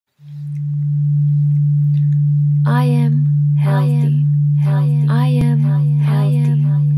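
A steady low droning tone fades in over about a second and then holds, as in meditation background music. A voice comes in over it about two and a half seconds in, in short phrases.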